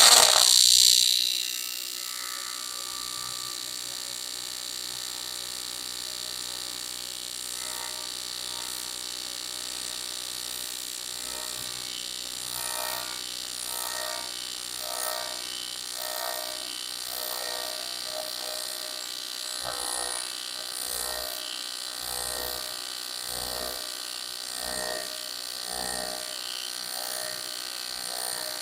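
AC TIG welding arc on 6061 aluminum: it strikes with a short, loud crackling burst, then settles into a steady buzz. From about halfway a soft regular pulsing, about once a second, runs through the buzz.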